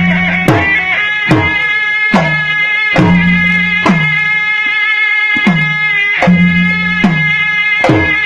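Gendang silat music: a serunai (Malay oboe) playing a sustained, reedy melody over gendang drums that strike a steady beat, with a loud stroke a little more than once a second. A low steady tone hums under the drums.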